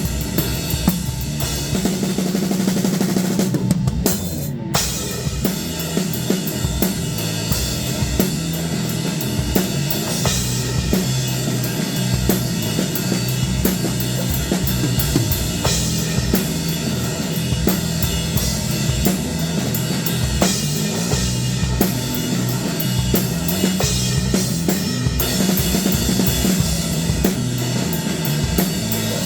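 Drum kit playing a steady groove, with bass drum, snare and continuous cymbal strokes. There is a brief break in the cymbals about four seconds in.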